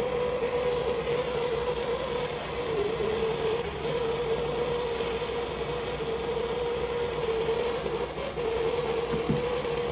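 Handheld gas blowtorch flame burning steadily, a constant hiss with a steady hum, heating a 22 mm copper pipe fitting so it is hot enough to take solder.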